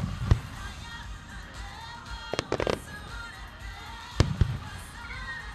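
Japanese aerial firework shells bursting: two sharp bangs at the start, a quick cluster of crackling reports around the middle, and two more bangs about three-quarters in. Background music plays throughout.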